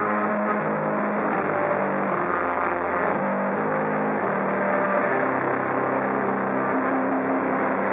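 Metal band playing live: heavily distorted electric guitars and bass over drums, with cymbals struck in a steady beat.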